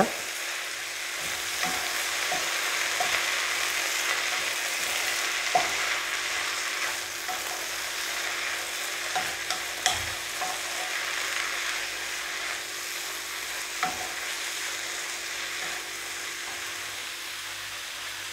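Drumstick leaves sizzling in hot coconut oil as they are stirred and turned with a wooden spatula, with a few sharp taps of the spatula against the pan.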